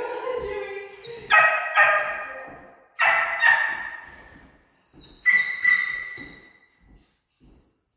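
A dog barking in three quick double barks that ring on in a large, echoing room.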